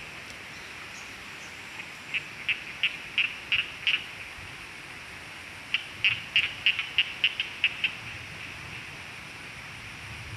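Steady rush of a muddy, rain-swollen stream, with two runs of short, high chirps, about three to four a second, the first about two seconds in and the second near the middle.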